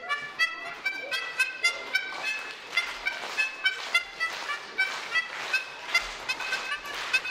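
A quick tune played on a homemade musical instrument, in short, separate pitched notes of about four a second, each starting with a sharp click.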